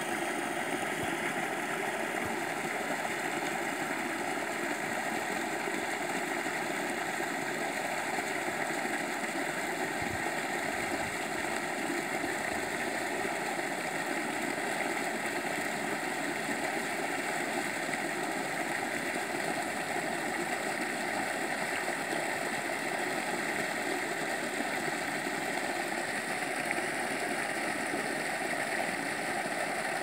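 Rainwater runoff falling over a small earthen drop in a muddy gully and splashing into a pool below: a steady rushing splash of water.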